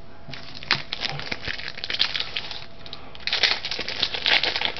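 Trading-card pack wrapper crinkling and rustling as it is handled and opened, in two stretches of irregular crackly bursts with a short pause about halfway through.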